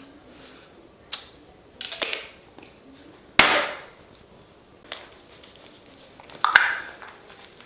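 Kitchen clatter: a handful of separate knocks and clatters, like utensils and dishes being handled and set down, the loudest about three and a half seconds in and fading briefly after.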